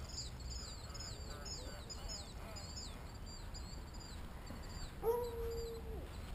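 Small birds chirping steadily in rapid, repeated high notes. About five seconds in, a single steady, held call lasts about a second and stands out above the chirping.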